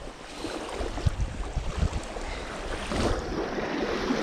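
Small waves lapping and washing up a sandy lakeshore, with wind buffeting the microphone in gusts of low rumble about a second in.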